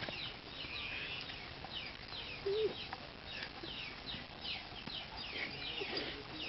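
Birds calling: short high chirps, each falling in pitch, repeated about twice a second, with one brief lower call about two and a half seconds in.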